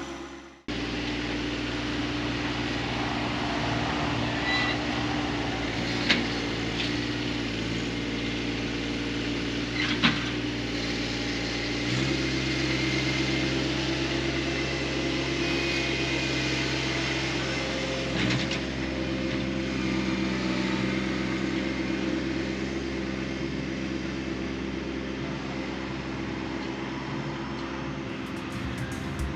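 John Deere 1025R compact tractor's three-cylinder diesel engine running steadily. Its note shifts up a little about twelve seconds in, and a few sharp knocks sound over it.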